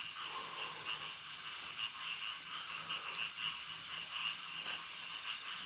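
Night insect chorus: crickets trilling steadily in a high, pulsing band, with a faint low hum coming and going underneath.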